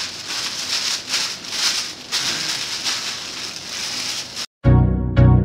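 White tissue paper crinkling and rustling as it is handled, in uneven surges. Near the end it cuts off abruptly and electronic music with a steady beat starts.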